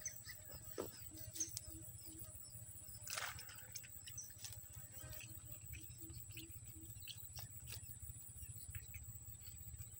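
Quiet riverbank ambience with a steady high-pitched hum, and an animal repeating short low notes in runs of three or four. Scattered small clicks and a brief rustle about three seconds in come from fishing gear being handled.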